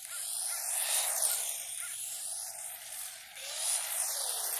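HSP RC drift car's 3300kV brushless electric motor whining as the car drives across asphalt, the whine rising and falling in pitch several times over a steady hiss, with the transmitter on its low speed setting.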